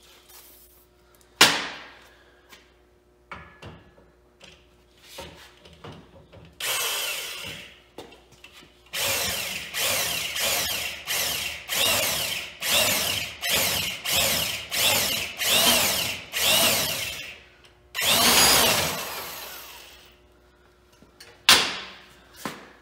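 Handheld power drill turning a bushing facing cutter, shaving down the bushing on a Model T drive shaft tube so the U-joint will fit. It is run in about ten short bursts roughly a second apart, then one longer run, with a sharp knock early on and two more near the end.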